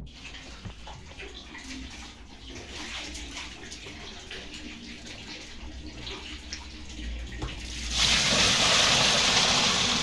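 Water being poured by hand into the wash tub of a twin-tub washing machine, over the clothes, to fill it for the wash. Quieter trickling and small knocks come first, then a loud, steady pour starts about eight seconds in.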